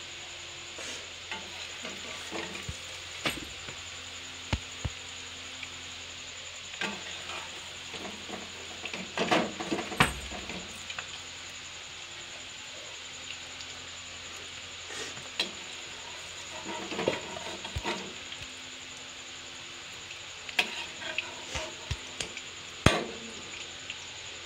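Paneer cubes sizzling steadily in hot oil, with scattered clicks and scrapes of a perforated metal skimmer against the pan as the fried cubes are lifted out; the loudest knocks come about ten seconds in and near the end.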